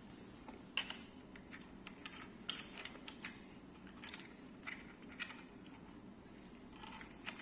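Faint, scattered clicks and taps of hard plastic and metal parts handled while the handlebar clamp screws are loosened by hand, over low steady room noise.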